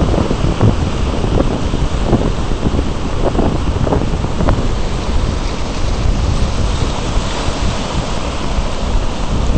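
Wind buffeting the microphone in a steady low rumble, over the wash of breaking surf, with a few stronger gusts in the first half.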